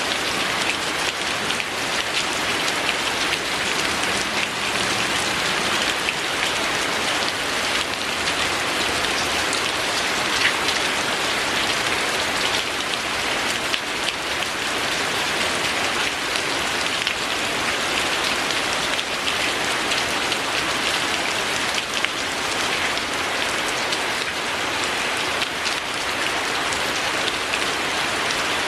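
Steady rain falling, an even, unbroken hiss of many small drops that holds level throughout.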